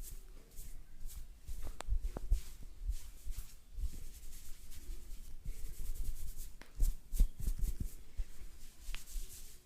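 Close-miked rubbing and scratching from hands and tools working on a person's head and ears, with many small irregular clicks and soft low thumps.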